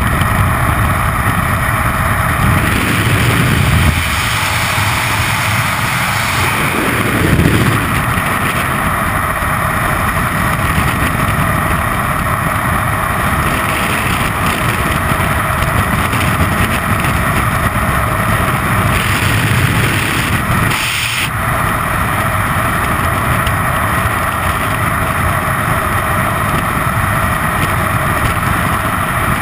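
Freefall wind rushing over a body-worn camera's microphone: a loud, steady roar of wind noise, with a short dip about two-thirds of the way through.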